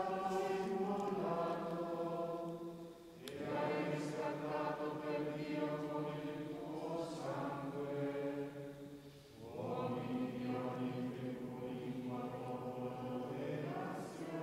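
Liturgical singing: voices chanting a slow hymn in long, held phrases, with short breaks about 3 and 9.5 seconds in.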